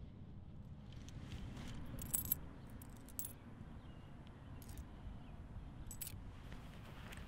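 A few coins clinking together in a palm as they are picked through and counted: scattered sharp metallic clinks, the loudest pair about two seconds in, over a low steady rumble.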